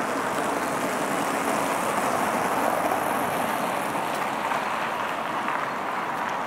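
Road traffic: a steady hiss of car tyres on the street, swelling a little two to three seconds in as a vehicle passes.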